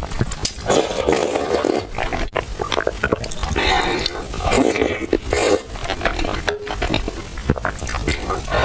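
Close-miked slurping and wet chewing of milk tea with soft, chewy purple rice, full of small mouth clicks.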